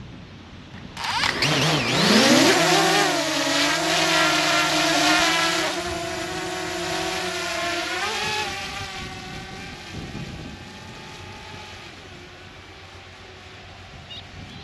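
A motor vehicle's engine comes in suddenly, rising quickly in pitch as it revs up. It then holds a steady note for several seconds and dies away after about eight seconds.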